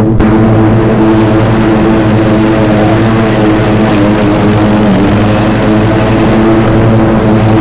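Dixie Chopper zero-turn riding mower's engine running while mowing: a loud, steady drone with a slight waver in pitch.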